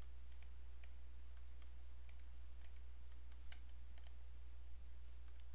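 Computer mouse clicking: a dozen or so faint, irregularly spaced clicks as faces are picked on screen, over a steady low hum.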